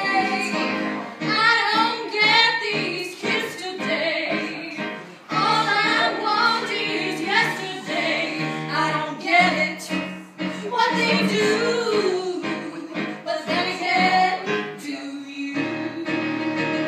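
Women singing a musical-theatre number over instrumental accompaniment.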